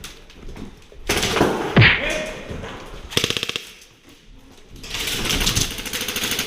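Airsoft guns firing rapid full-auto bursts: a short burst about three seconds in, then a longer stretch of fast fire near the end.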